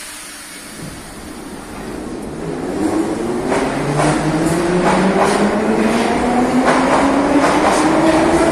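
Metro train pulling out of the station: the electric traction motors whine, rising steadily in pitch and growing louder as the train gathers speed from about two seconds in. From about halfway in, the wheels click regularly over the rail joints, the clicks coming faster as it speeds up.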